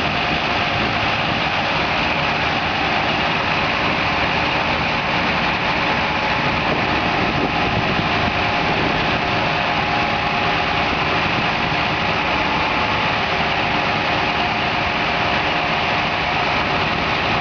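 Engine of a large rigging forklift running steadily while it carries a heavy machine, an even, unbroken engine noise.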